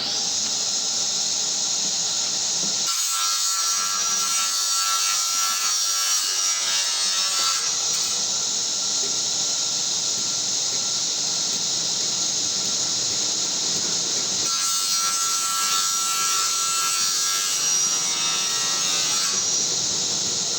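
Table saw running steadily with a high, hissing whine. Its sound changes for two stretches of about four to five seconds each, one near the start and one near the end.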